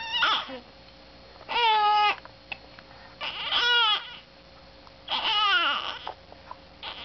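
Infant about three months old fussing, four short crying wails about one and a half to two seconds apart, each under a second long and falling in pitch at the end.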